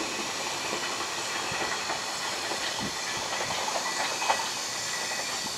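Freight wagons rolling past on the rails: a steady hiss of wheels on track with scattered clacks, two sharper clicks at the start and about four seconds in.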